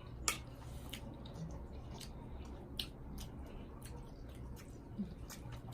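Quiet eating sounds: soft chewing with scattered small clicks and ticks, the sharpest about a third of a second in, over a low steady hum.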